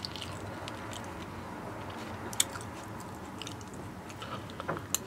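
Close-miked chewing and mouth sounds of someone eating baked ziti with rice: soft wet smacks and small clicks, with one sharper click about two and a half seconds in.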